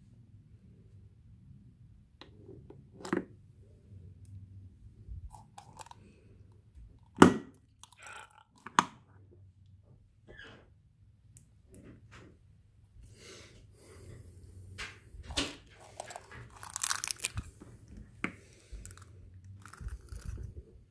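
Plastic snap-type rat trap being handled, set and sprung: a few sharp snaps, the loudest about seven seconds in and another a moment later. Between them come scattered lighter clicks, and a stretch of crackling handling noise near the end.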